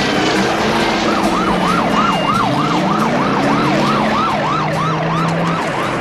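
Police patrol car siren in a fast up-and-down yelp, starting about a second in at roughly three sweeps a second, over the car's engine running and revving.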